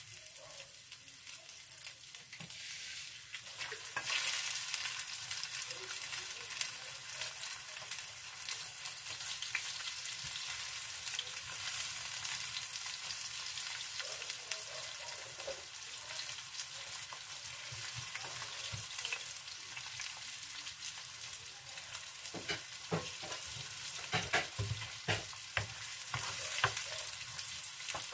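Fish fillet frying in very hot oil in a pan: a steady sizzle that grows louder about four seconds in, with sharper pops and clicks near the end.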